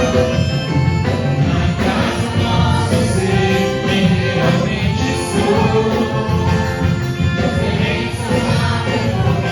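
Live Christian worship song: voices singing over a full band.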